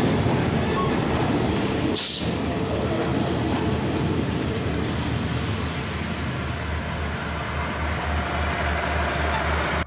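Diesel-hauled passenger train of QSY locomotive 5219 rolling past close by, its carriages making a steady loud rumble and clatter of wheels on the rails. There is one sharp clack about two seconds in.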